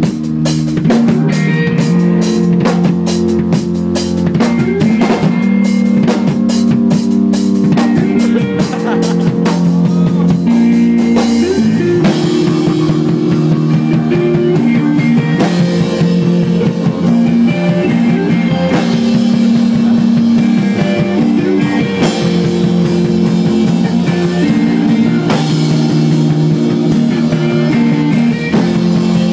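A live math-rock band playing an instrumental passage: a drum kit and electric guitars, loud. The band shifts into a new section about twelve seconds in.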